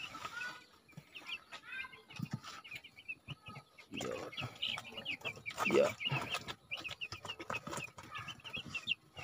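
A brooder full of young broiler chicks peeping: many short, high cheeps throughout. A few knocks and rustles about four and six seconds in as the plastic waterer is handled and set down on the litter.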